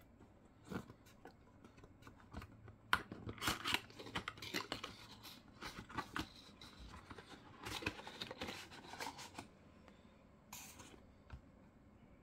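Product packaging being opened by hand: tearing, crackling and scraping of paper and plastic in two main bouts, with scattered taps between and a short hiss near the end.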